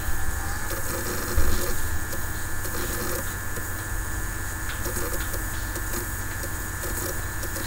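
Steady background noise with a low hum, faint scattered sounds and a few light clicks.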